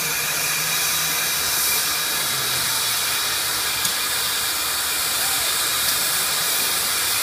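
Southern Railway 630, a 2-8-0 steam locomotive standing still, giving off a steady hiss of escaping steam.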